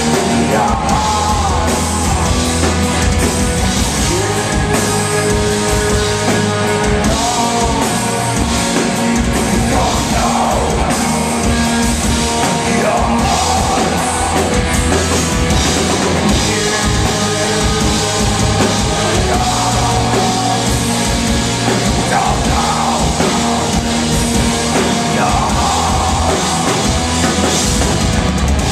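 Rock band playing live and loud: electric guitar, drum kit and sung vocals through the PA.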